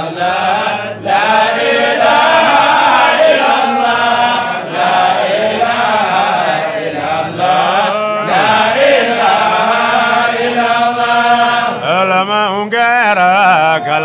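Group of men chanting a dhikr together, many voices overlapping in a drawn-out chant. About twelve seconds in, a single man's voice with a wavering, ornamented pitch rises clearly above the group.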